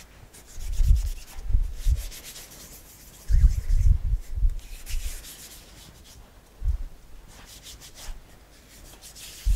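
Hands rubbing and smoothing sugarpaste icing over a dome-shaped cake: soft rubbing strokes with a few dull low thumps as the palms press down, the heaviest run about three and a half to four and a half seconds in.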